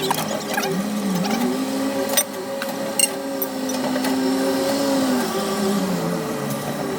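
Caterpillar 320C excavator's diesel engine running under working load, its pitch rising and falling as the hydraulics pull on it. Two sharp knocks, about two and three seconds in.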